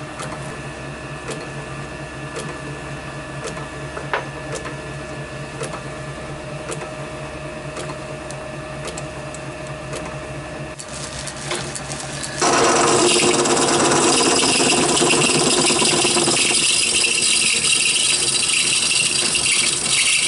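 Small metal lathe in a workshop: a quieter steady hum with scattered clicks at first, then, about twelve seconds in, the much louder, even noise of the lathe running with its chuck spinning a small brass part.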